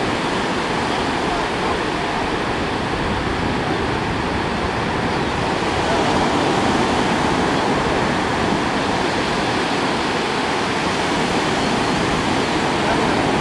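Ocean surf breaking on a beach, a steady rushing wash of waves that grows a little louder about six seconds in.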